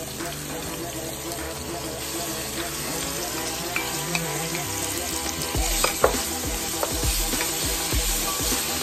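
Sliced onions and minced garlic sizzling in a stainless steel pan while being stirred with a wooden spoon; from about halfway the spoon's strokes add knocks and scrapes against the pan.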